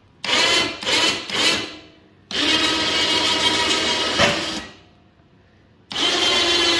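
Badland electric winch motor running in bursts with a steady whine: two short taps, then a run of about two seconds, then another run starting near the end. It is winching the cable that raises and lowers an ATV snow plow blade.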